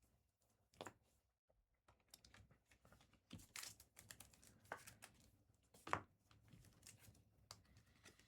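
Faint handling of trading cards and foil card-pack wrappers: scattered soft clicks, crinkling and a little tearing, with the sharpest noise about six seconds in.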